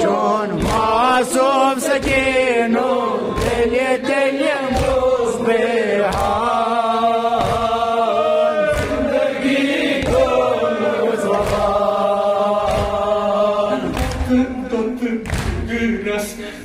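A male reciter singing a Kashmiri noha (mourning lament) into a microphone, with a group of men chanting along. Under the voices run steady, regular thumps, less than a second apart: hands beating on chests in matam, keeping time with the lament.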